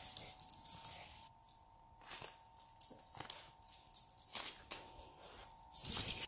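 A small dog's paws and claws scrabbling and pattering on a wooden floor in irregular bursts, with rustling, and a louder scuffing burst near the end.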